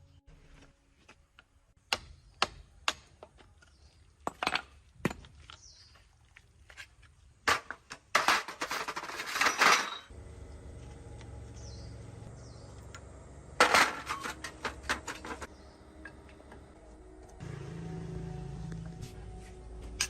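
Scattered sharp metallic clinks and knocks, like hand tools striking and setting down on metal, with a harsh rushing, scraping burst lasting about two seconds in the middle and a low steady hum after it.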